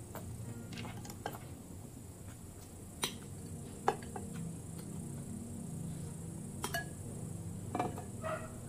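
Metal spoon scooping in a glass bowl, giving a handful of scattered sharp clinks against the glass, the loudest about four seconds in.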